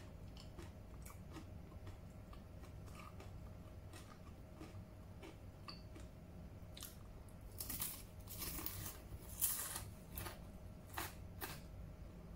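Close-up biting and chewing of dried okra crisps: faint small mouth clicks at first, then a run of crisp crunches from about seven to eleven seconds in.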